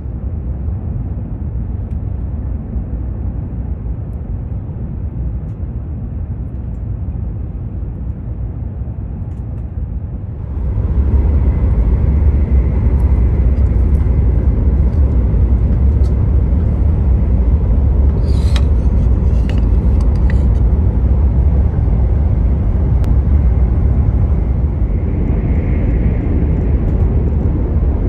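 Cabin noise of a Hokuriku Shinkansen E7/W7-series bullet train running at speed: a steady low rumble and rush that steps up to a louder, deeper rumble about ten seconds in. A few light clicks sound briefly past the middle.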